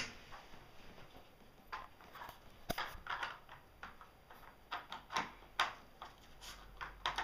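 Scattered light plastic clicks and knocks as a small dog noses and pushes the plastic bone-shaped lids of a Nina Ottosson Dog Finder treat puzzle.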